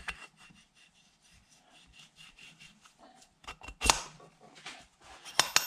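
Light metallic clicks and scraping as a valve is worked by hand in its seat and guide in a cylinder head, with a sharper click about four seconds in and a quick run of clicks near the end.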